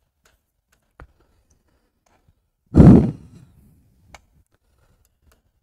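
A man's loud breath out, a sigh close to a headset microphone, about halfway through. Faint single clicks come before and after it.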